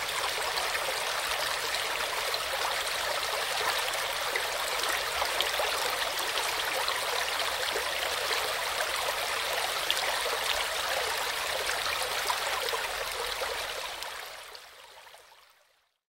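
Steady rush of a waterfall and mountain river, fading out over the last two seconds.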